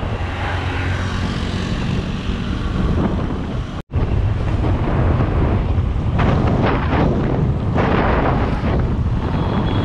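Motorcycle engine running steadily while riding, mixed with wind noise on the microphone. The sound cuts out for an instant about four seconds in, then carries on the same.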